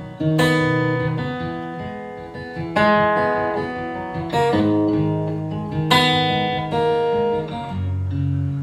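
Acoustic guitar played as an instrumental interlude between sung lines: a few strummed chords, each struck sharply and left to ring out.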